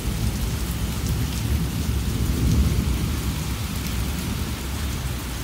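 Rain falling steadily, with a long low rumble of thunder from a nearby storm.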